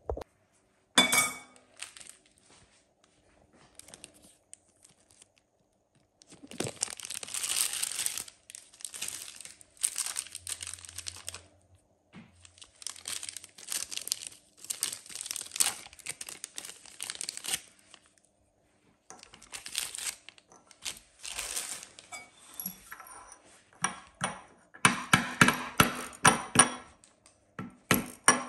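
Thin plastic packet crinkling and rustling in the hands for long stretches. Near the end comes a quick run of sharp knocks, two to three a second: a metal pestle smashing yeast balls into powder in a ceramic bowl.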